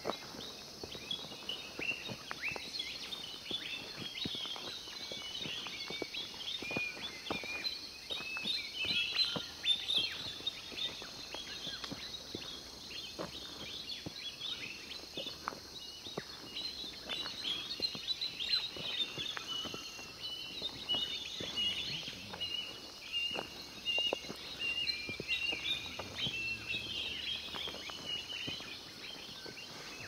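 Early-morning chorus of many birds, with dense overlapping high chirps and short trills throughout, and scattered soft clicks.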